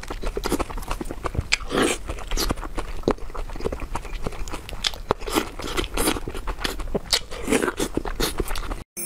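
Close-miked eating of spicy hot pot: quick wet smacks and clicks of chewing, with a few longer slurps. The sound cuts off abruptly near the end.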